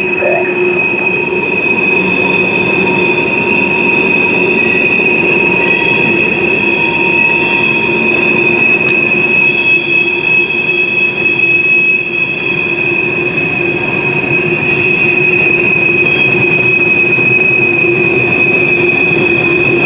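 Steel wheels of a long string of coal hopper cars squealing against the rails as the train rolls through a sharp curve: a steady high-pitched squeal over a continuous rumble.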